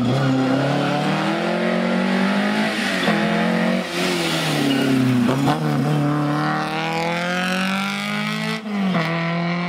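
Lancia Fulvia rally car's narrow-angle V4 engine running hard, its revs rising and falling with the throttle. Near the end the revs climb steadily, then drop sharply as it shifts up.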